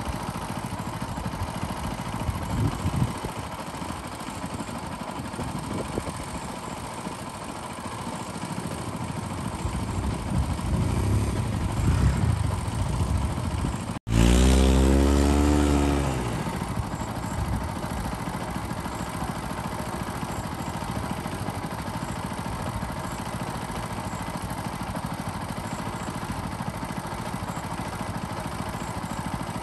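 Engine running steadily in the background; about halfway through, a louder engine sound sweeps down in pitch over about two seconds.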